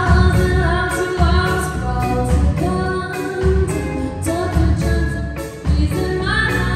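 Live rock band playing: a female lead vocal over two electric guitars, electric bass and a drum kit, with a steady beat.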